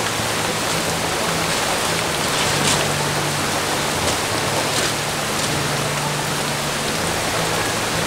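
Steady rain falling, an even hiss of water with no break.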